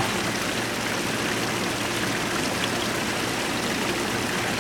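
Steady rush of running water at a koi pond, even and unbroken.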